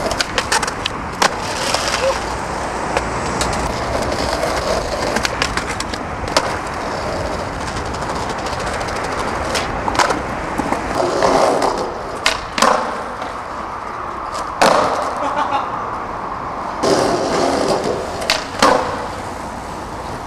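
Skateboard wheels rolling over paving stones, broken several times by the sharp snap of the tail popping and the clack of the board landing.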